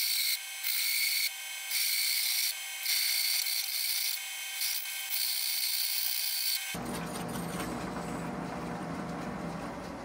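Bi-metal hole saw in a drill press cutting slowly through thick steel plate, heard time-compressed as a high-pitched grinding hiss in short chopped segments. About seven seconds in it switches abruptly to a fuller, lower machine noise that slowly fades.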